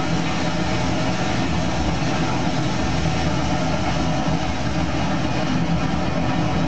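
Steady running noise of a train, a constant rumble with a low engine hum and no sudden changes.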